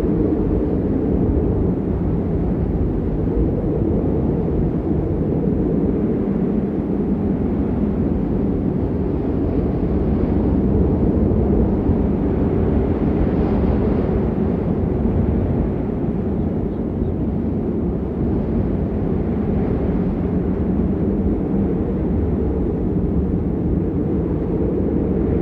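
Strong wind blowing: a loud, steady low roar that swells a little about halfway through.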